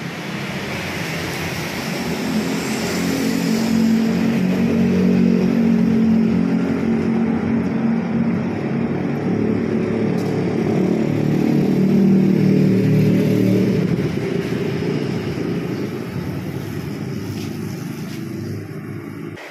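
Street traffic: car and motorcycle engines passing close by, swelling twice and easing off near the end.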